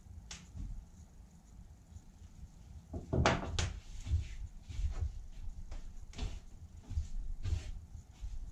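Pizza dough being mixed by hand in a large metal tub: irregular soft thuds and scrapes about once or twice a second, with the loudest knocks about three seconds in.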